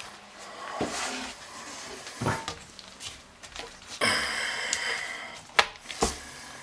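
Handling noises from a new toilet tank in its cardboard box as a gloved hand works the rubber tank-to-bowl gasket onto the tank's flush-valve opening: scattered rustling and light knocks, with two sharp knocks near the end.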